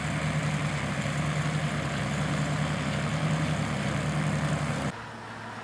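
Tractor engine running steadily as it drives a mounted corn picker through dry cornstalks, with the rattle and rush of the picker mixed in. A little before the end the sound cuts off abruptly to a much quieter, steady engine hum.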